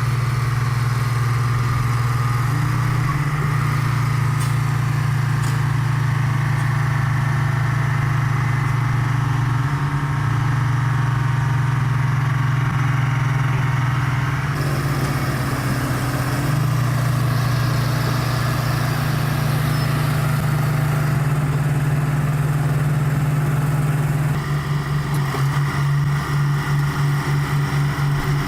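Heavy construction machine's diesel engine running with a steady low drone. The sound shifts abruptly about halfway through, and near the end it takes on a quick pulsing beat.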